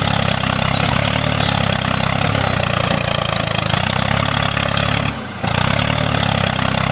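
An engine running steadily at a low, even speed, dropping briefly in level about five seconds in.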